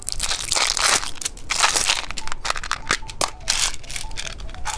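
Close-miked crinkling and crunching of candy and its plastic packaging: a dense, irregular run of sharp crackles and short rustling bursts.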